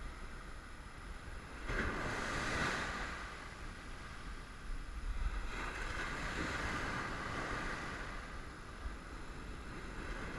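Ocean surf breaking and washing up a sandy beach, swelling twice, about two seconds in and again about six seconds in.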